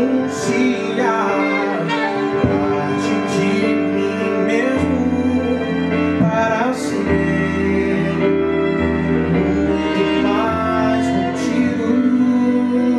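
Live band playing a song: a male singer on a microphone over violin, with saxophone and keyboard, amplified through a PA speaker.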